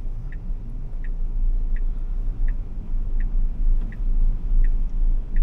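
A Tesla Model Y's turn-signal indicator ticking evenly, about once every three-quarters of a second, heard inside the cabin. Under it is a low road and tyre rumble that grows louder as the car pulls away from a stop.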